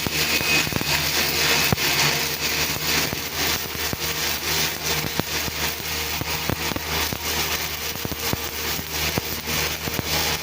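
Stick welding with a 7018 electrode in the vertical position: the arc crackles steadily with frequent small pops, over a low steady hum.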